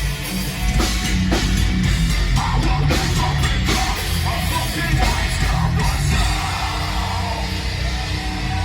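Live heavy metal band playing loud, with distorted guitars, drums and shouted vocals. The sharp drum and cymbal hits thin out about six seconds in, leaving held guitar tones.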